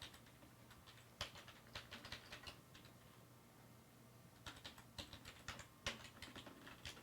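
Faint computer keyboard typing: two short runs of keystrokes, one about a second in and another from about four and a half seconds in.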